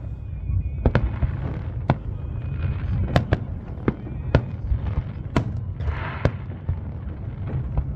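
Aerial fireworks bursting: sharp reports at irregular intervals, roughly one a second, over a continuous low rumble, with a brief crackling hiss about six seconds in.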